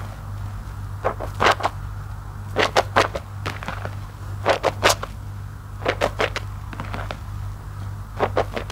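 An IKEA loofah full of soapy foam, squeezed by hand in a basin of suds, giving wet squelching crackles in short clusters about every second and a half, five times.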